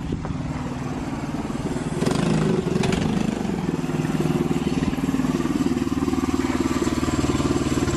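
Doodlebug mini bike's small four-stroke single-cylinder engine running steadily at speed as the bike rides up close, getting louder about two seconds in. This is a top-speed run testing a newly changed carburetor jet.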